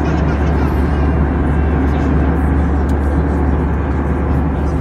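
Steady cabin noise of an Airbus A320 in cruise: a deep, constant drone with an even hiss above it and a few faint ticks.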